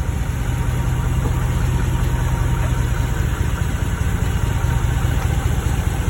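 A 2014 Ram 1500 pickup's engine idling, a steady low drone, with a few faint clicks over it. The clicking is the suspension noise the owner hears only when turning left while moving.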